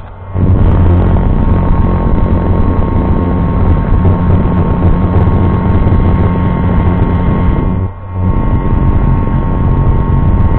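Deutz-Fahr 7250 Warrior TTV tractor's 6.1-litre six-cylinder diesel engine revved up from idle and held at high revs, easing off briefly about eight seconds in before picking up again, then dropping back sharply at the end.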